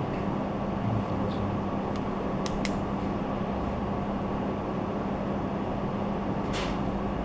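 Steady hum and hiss of room tone in a shop. A few brief clicks come about two and a half seconds in, and a short hiss near the end.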